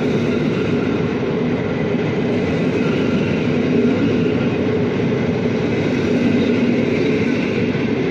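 PKP Intercity passenger coaches rolling past along the platform: a loud, steady rumble of steel wheels on the rails, without a break.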